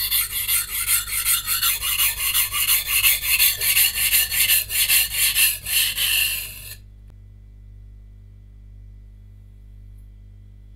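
Santoku kitchen knife with a VG10 core steel stroked back and forth on a whetstone, about three strokes a second, grinding the chips out of its edge. The strokes stop about two-thirds of the way through, leaving a faint low hum.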